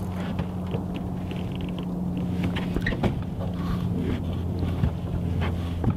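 Boat motor running steadily with a low hum, with a few light clicks and knocks from handling tackle on the boat deck.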